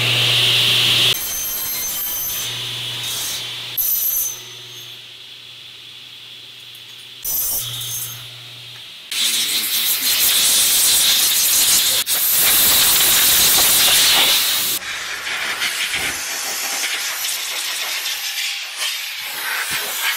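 Bench cut-off saw running with a steady motor hum, cutting the profile at the start and again about 7 s in. From about 9 s, a compressed-air blow gun hisses in long blasts, clearing cutting chips off the cut frame profiles.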